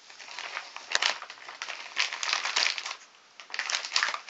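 Packaging rustling and crinkling in irregular bursts as the box contents are handled, with a short lull near the end.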